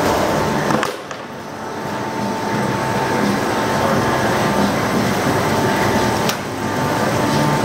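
Winery grape-crush machinery running steadily: the stainless receiving hopper's inclined conveyor, driven by an electric gear motor, with a forklift working alongside, carrying a steady high whine. The level dips briefly about a second in and again near the end.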